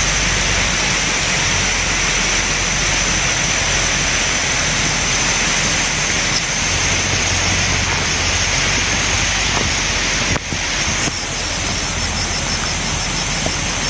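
Steady rushing outdoor noise with a constant high-pitched hiss on top, briefly dipping about ten seconds in.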